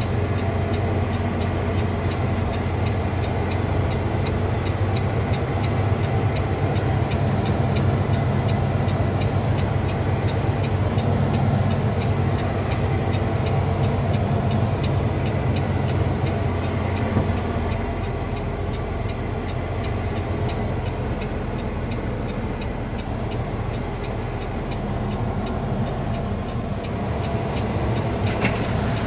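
Heavy Peterbilt wrecker's diesel engine running steadily at low speed under the load of a towed truck, heard from inside the cab, with a little rattling in the mix. The engine note eases slightly a little past halfway.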